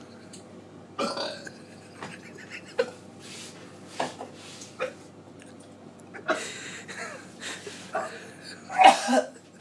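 A man gagging and retching over a kitchen sink in a series of short heaves and burps, the loudest near the end. It is his body rejecting a freshly downed foul mix of mouthwash, alcohol and sauces.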